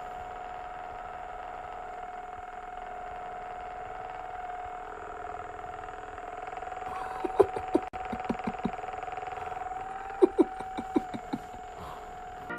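A steady motor hum on one held pitch, with two quick runs of sharp knocks or taps about seven and ten seconds in.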